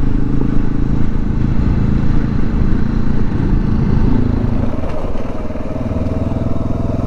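Dual-sport motorcycle engine running while riding a rough gravel road. The engine note steps up about four seconds in, then eases off a little.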